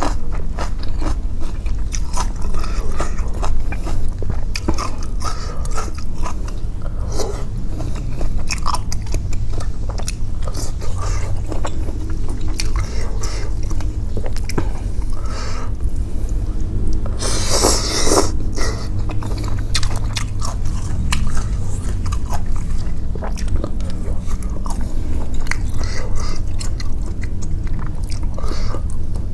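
Close-up eating sounds of noodle soup with pork balls: wet chewing and biting, many short smacks and clicks, with one louder, longer noisy burst about 17 seconds in.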